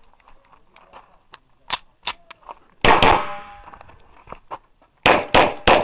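Pistol shots fired during a USPSA Limited-division stage: a couple of sharper cracks, then a single loud shot about three seconds in with a short ring after it, then a fast string of four shots near the end, about a third of a second apart.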